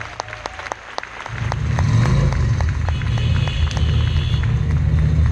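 Scattered audience clapping, with the low, steady bass of the show's music coming in a little over a second in and building.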